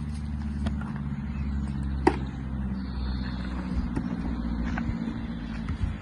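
A motor vehicle engine running, a steady low hum, with one sharp knock about two seconds in.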